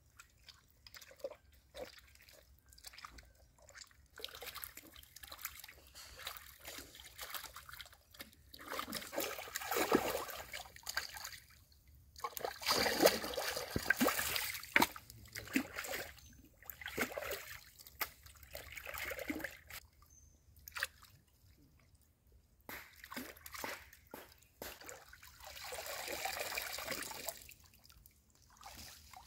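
Raw pork tripe being washed by hand in a shallow stream: irregular sloshing, trickling and splashing of water, with several louder bouts of splashing as a bowl is dunked and swept through the water.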